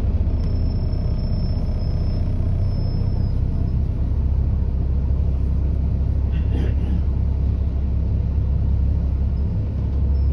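A bus's engine and road noise rumbling steadily inside the passenger cabin while on the move. A faint high whine sits over it for the first few seconds.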